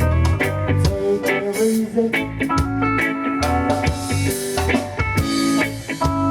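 Live band playing a reggae tune at a sound check: plucked guitar notes over deep bass notes and a drum kit keeping a steady beat.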